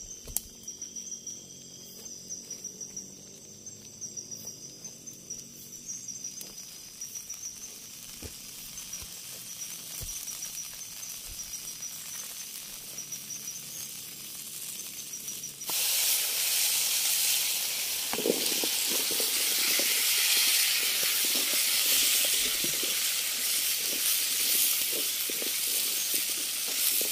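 Insects chirping in a steady, pulsing high trill. About sixteen seconds in, hot cooking oil suddenly starts sizzling much louder as food goes into the pan, with crackling and spattering from then on.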